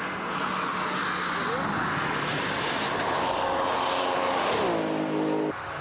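Tuned Nissan Skyline GT-R's twin-turbo RB26DETT straight-six at full speed, passing by with wind and tyre rush. The engine note falls steeply in pitch as the car goes past, then the sound cuts off abruptly near the end.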